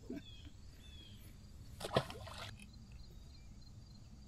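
A caught crappie dropped into water with a short splash about two seconds in, over faint high bird chirps.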